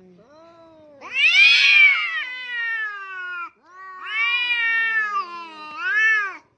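Domestic cats caterwauling in an aggressive face-off. The first long yowl starts about a second in, rising and falling in pitch, and a second long yowl follows, wavering and ending in a rising-then-falling wail.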